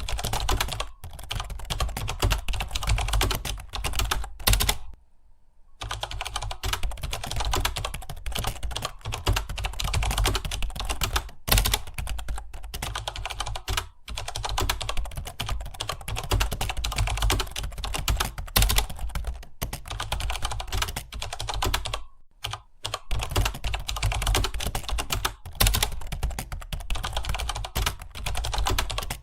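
Fast, continuous typing on a computer keyboard: a dense run of key clicks, with short pauses about five seconds in and again about twenty-two seconds in.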